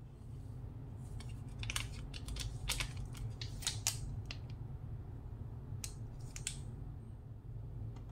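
A metal spoon clicking and scraping as dry yeast is scooped and added to flour in a glass bowl: a string of light, sharp clicks over about five seconds, over a steady low hum.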